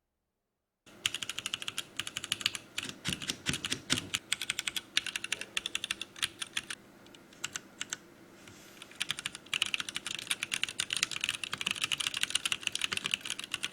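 Typing on a LeleLab Y2K 76 mechanical keyboard, keystrokes clacking. It starts about a second in, goes sparser around the middle, then turns to fast continuous typing near the end.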